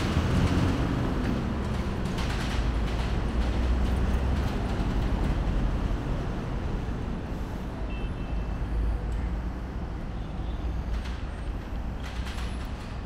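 City street traffic: a motor vehicle's engine running with a low rumble, loudest at first and slowly fading over the first half.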